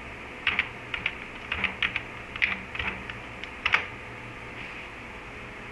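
Computer keyboard being typed on: about a dozen quick, irregular key clicks over roughly three seconds, ending with one harder keystroke, then the typing stops.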